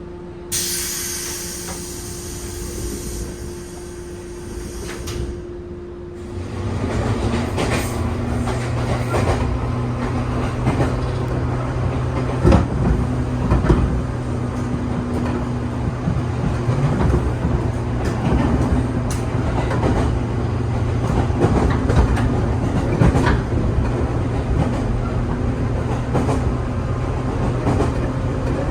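Air hiss of the 415 series EMU's pneumatic doors closing, then the train pulling away and running, heard from inside the carriage: a steady motor hum under frequent clicking of the wheels over rail joints, which grows louder about six seconds in.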